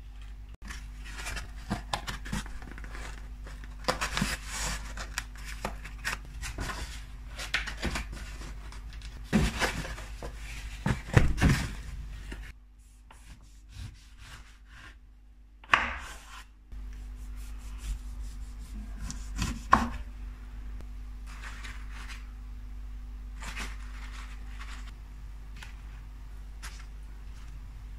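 A kitchen knife cutting an orange into wedges on a wooden cutting board: irregular knocks of the blade on the board, with slicing and rubbing sounds between them.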